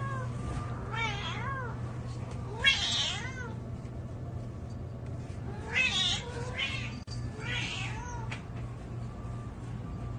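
Domestic cat meowing repeatedly, about five drawn-out meows that rise and fall in pitch, over a low steady hum.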